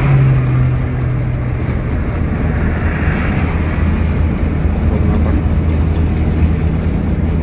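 Cabin noise of a moving intercity bus: a steady low drone of engine and tyres on the road. In it is a dragging noise that the passengers suspect comes from a tyre.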